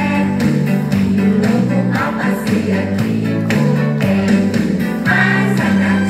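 Music: a song with singing over a bass line that moves from note to note.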